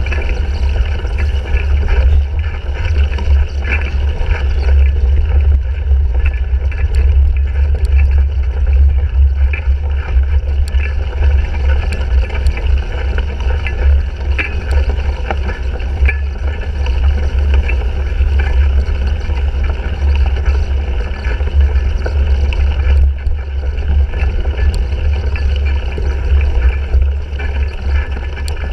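Wind and ride noise on a bike-mounted GoPro's microphone while a cyclocross bike is raced: a steady heavy low rumble with scattered rattles and clicks from the bike over rough ground.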